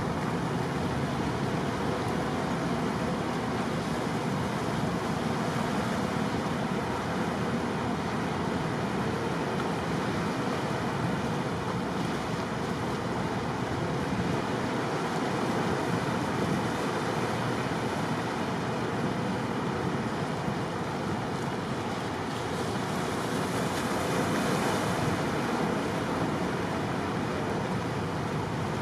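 Steady rush of wind and sea water, even throughout with no distinct events.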